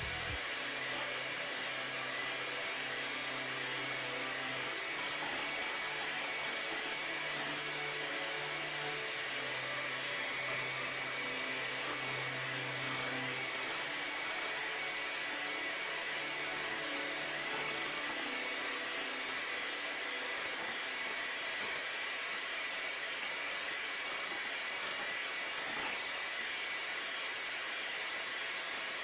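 Electric hand mixer running steadily at medium speed, its beaters whipping warmed whole eggs and sugar in a glass bowl. The batter is pale and thickening toward the ribbon stage for a genoise sponge.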